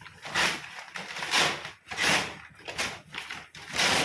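A sealed plastic courier package being cut and torn open, with crinkling in about five rasping bursts, one every second or so.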